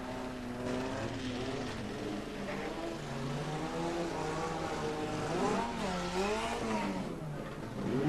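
Engines of several racing cars running and revving round a track, their pitch rising and falling with the throttle, most sharply about six seconds in.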